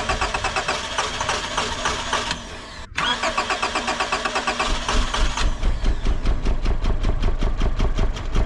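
A 1999 Honda Accord's engine being cranked over by the starter with a fast, even chugging. The cranking breaks off briefly about three seconds in and starts again. About two seconds later a heavier low rumble comes in as the engine begins to fire. This is a start attempt on an engine with a cylinder misfire.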